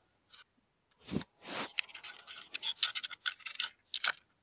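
A raccoon scratching and rubbing against a Ring doorbell camera, heard up close through the doorbell's own microphone. A dull bump comes about a second in, then a dense run of scratching with sharp clicks, and one last click near the end.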